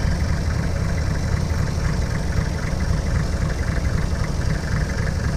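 Off-road vehicle's engine idling steadily, with a fast, even ticking clatter over a low rumble.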